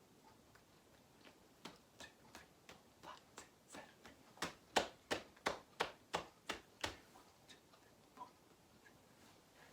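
A run of finger snaps keeping a steady beat of about two to three a second, growing louder to a peak around the middle and then dying away.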